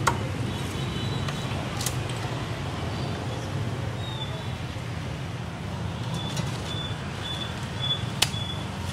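Steady low hum of street traffic, with a couple of sharp knocks. From about six seconds in comes a faint high electronic beeping that repeats two or three times a second.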